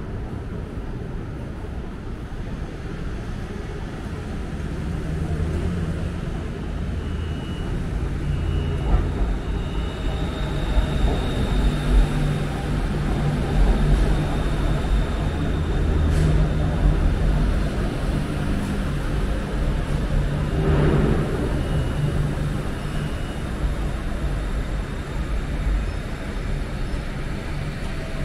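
BTS Skytrain train pulling into an elevated station: a low rumble of the train and its motors builds as it comes in and then eases, with a thin high whine partway through. A few short high beeps sound twice.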